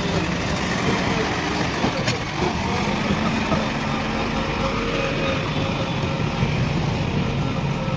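JCB 3DX Plus backhoe loader's diesel engine running steadily while working, with one sharp knock about two seconds in.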